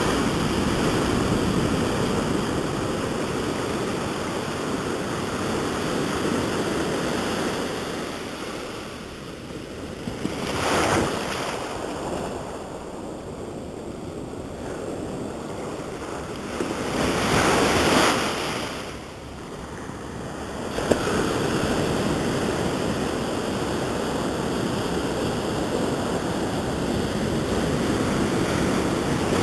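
Ocean surf breaking close by, with foamy wash rushing up and draining back over the sand in a steady roar. Two louder wave crashes come about a third of the way in and again a little past halfway.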